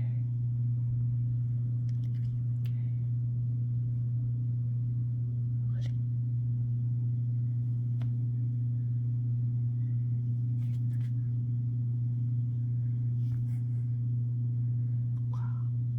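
A steady low hum, with a few faint, brief sounds over it.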